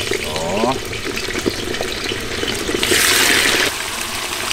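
Raw lamb rib pieces going into hot oil in a large kazan, the oil sizzling loudly, with a brief louder surge of sizzling about three seconds in.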